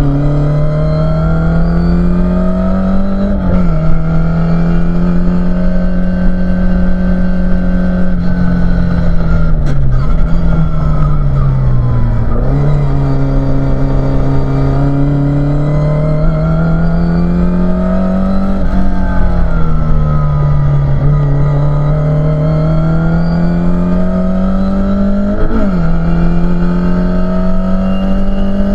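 Mk2 Ford Escort RS2000 race car's four-cylinder engine heard from inside the cabin, running hard: the revs climb and drop sharply at upshifts, and fall more slowly as the car slows for corners.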